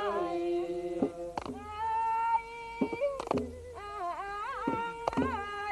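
A voice singing Jariang Norakaew, a Thai-Khmer repartee folk song, in long wavering ornamented held notes, with a sharp clack or clap every second or so, often in pairs.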